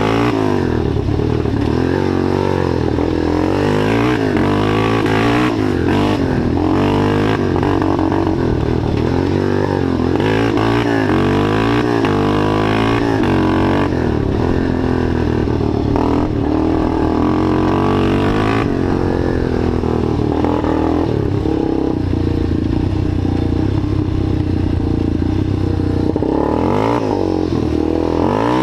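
Rebuilt ATV's engine running as the quad is ridden, its revs rising and falling every second or two.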